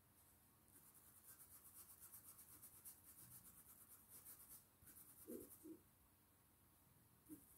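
Faint, quick scratchy strokes of a paintbrush's bristles scrubbing paint into fabric, a rapid back-and-forth brushing that pauses briefly about five seconds in and picks up again near the end. Two soft low sounds come just after the pause.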